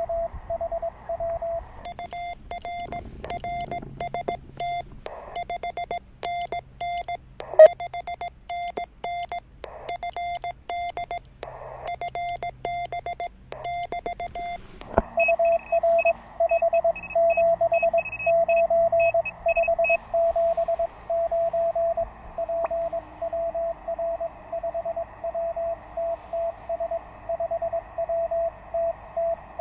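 Morse code from a QRP shortwave transceiver: a tone of about 700 Hz keyed in dots and dashes, with sharp key clicks through the first half. From about halfway the code carries on over steady receiver hiss, and for a few seconds a fainter, higher-pitched Morse signal is heard alongside it.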